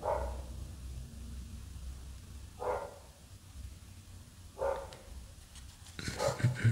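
A dog barking about four times, single short barks roughly two seconds apart, with a few light clicks near the end as trading cards are handled.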